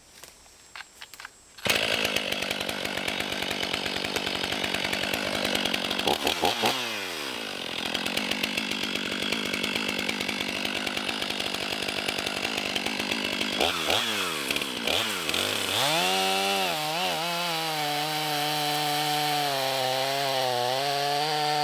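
Two-stroke chainsaw cutting into wood, starting abruptly under load, its engine pitch dropping and recovering twice as the bar bogs in the cut, then running at a steadier, wavering speed near the end.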